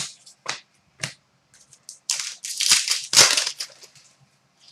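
Trading cards being handled: three sharp clicks in the first second, then rustling and scraping from about two seconds in until nearly four.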